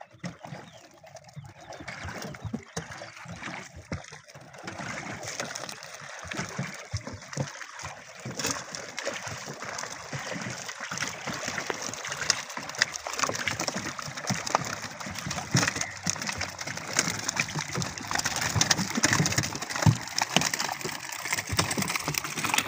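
A wooden paddle dipping and splashing in the lake water as a small fishing boat is paddled, with birds calling over the water.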